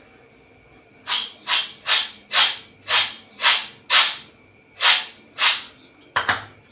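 Dry groundnuts swished by hand in quick strokes, about eleven in all at roughly two a second, the last two close together.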